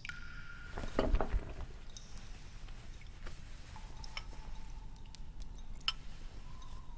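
Soft clinks and knocks of porcelain bowls and spoon as rice porridge is ladled and served, with a louder knock about a second in and a few faint clicks later.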